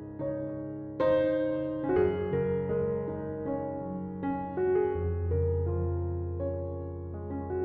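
Soft background piano music: chords and melody notes over a low bass that enters about five seconds in.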